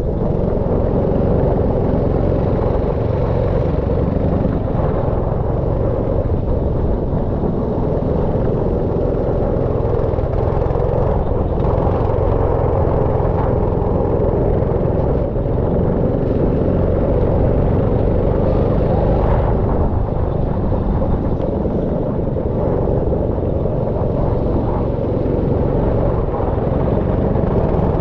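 Go-kart engine running at speed, loud and fairly steady without big swings in pitch.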